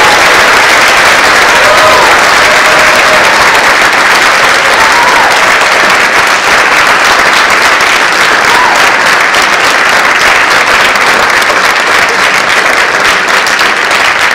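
Auditorium audience applauding: a long, steady round of clapping from many hands, loud and unbroken throughout.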